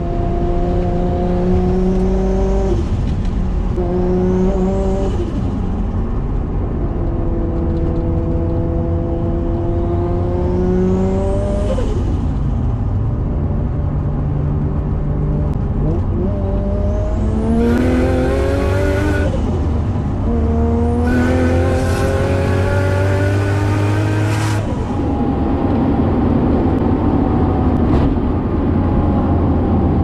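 Nissan Skyline R33's turbocharged RB25DET straight-six, heard from the cabin, pulling hard through the gears. The revs climb and drop at each shift, a thin turbo whistle rises on each pull, and a loud rushing hiss from the screamer pipe comes on the two hardest pulls past the middle. It settles into a steadier cruise near the end.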